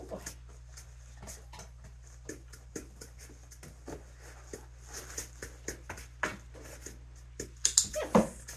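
A dog sniffing at a jar holding latex scent, with scattered small clicks and rustles, and a short falling whine near the end.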